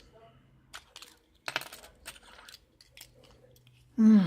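Small metal lock parts clicking and clinking as a pin-tumbler lock is handled, with a short clatter about a second and a half in. Near the end comes a brief hum from a voice, falling in pitch.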